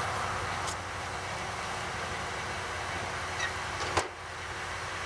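Steady rushing noise from the running wood gasifier setup, with a sharp clank about four seconds in as the gasifier lid is shut.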